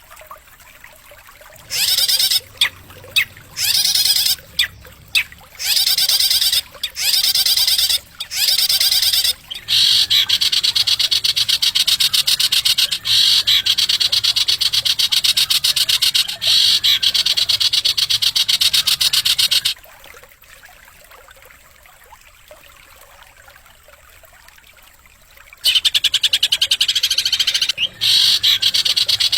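Recorded songbird song played as masteran, the training recording for cage birds. It is a rapid, high, buzzing trill, first in short bursts, then one long unbroken trill of about ten seconds. After a pause of several seconds it starts trilling again near the end.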